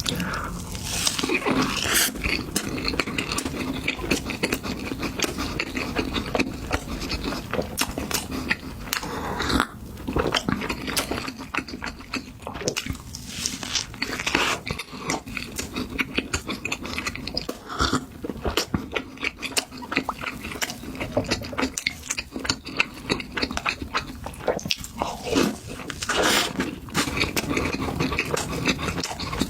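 Close-miked eating sounds: dense, irregular chewing, biting and wet mouth clicks, over a steady low hum.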